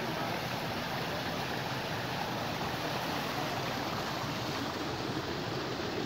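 Steady rushing of a rocky stream and waterfall.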